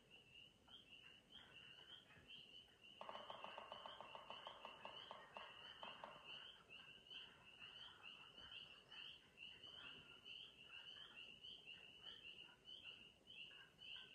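Faint chorus of frogs calling, a steady run of short high peeps repeating two or three times a second. A lower, rapid trill joins in from about three to six seconds in.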